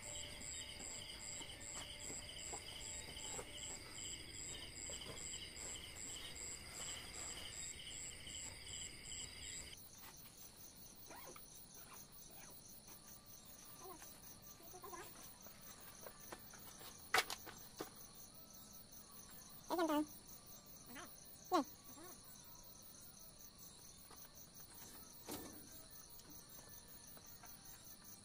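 Night insects, crickets, chirping in steady pulsing trills; about ten seconds in the chorus switches abruptly to a different, higher trill. A few short knocks and clicks in the second half, the sharpest about 17 seconds in.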